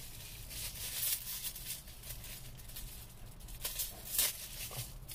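Thin plastic wrapper on a plastic fork being pulled and torn open by hand, crinkling in scattered, irregular crackles that are loudest around four seconds in.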